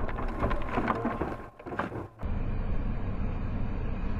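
Vehicle road noise picked up by a dashcam inside a moving car, with scattered clicks and knocks at first. It drops out briefly about a second and a half in, then runs on as a steadier, duller hum.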